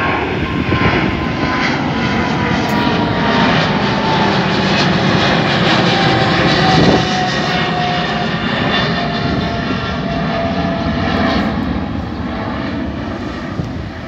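An Emirates Boeing 777-300ER's twin GE90-115B turbofans running at climb thrust just after take-off: a steady, loud jet roar with a crackling edge. A whine in it slowly falls in pitch as the airliner passes and draws away, and the roar fades a little near the end.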